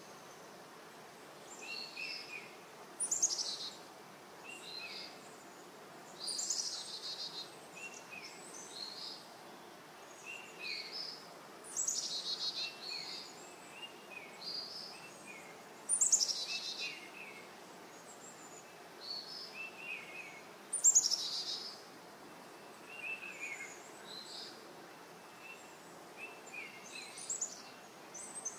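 Several songbirds singing in a meadow. One repeats a loud, quickly falling song every four to five seconds, while others add short chirps, all over a faint steady outdoor hiss.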